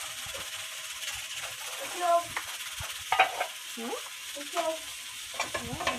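Onion frying in oil in a pot for rice, sizzling steadily while it is stirred, with a spoon scraping and knocking against the pot several times.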